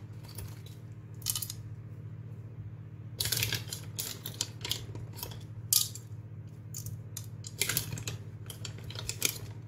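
Light rustles, taps and clicks of hands working in a baking tin and sprinkling grated cheese over pav buns, the sharpest click about six seconds in, over a steady low hum.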